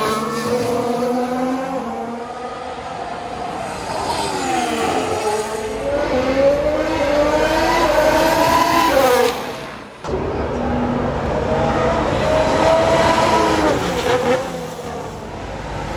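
Formula 1 cars' turbocharged V6 hybrid engines passing close by through a slow corner, one after another, each note falling as the car shifts down and rising again as it accelerates away. The engine sound dips briefly about ten seconds in.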